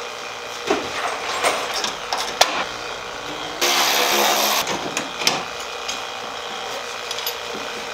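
Scattered metallic clicks and clinks of tools and parts being handled, and near the middle a power drill running for about a second.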